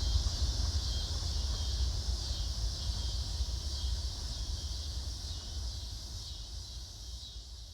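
Homemade propane forge burner running at about 3 psi: a steady low rumble of the flame with a hiss from the burner, fading gradually toward the end.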